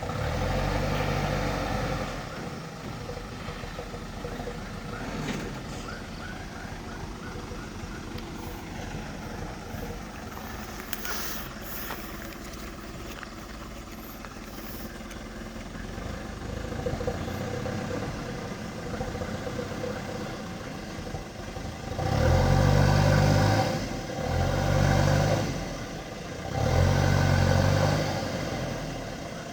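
Heavy-equipment engine running steadily, revved up in surges: once right at the start and three times in quick succession near the end, each lasting about two seconds.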